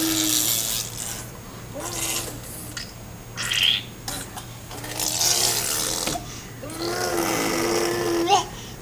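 A baby blowing raspberries with her lips, about five times, several of them with her voice humming through.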